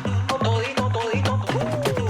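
Background music with a steady beat: an upbeat Afrobeat-style track with heavy bass drum hits about four times a second and a melody above.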